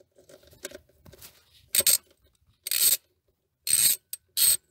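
Socket ratchet clicking in four short bursts about a second apart as it is swung back and forth, after some faint rubbing of the tool on the bolt. The ratchet is loosening the screws that hold the throttle body to the intake.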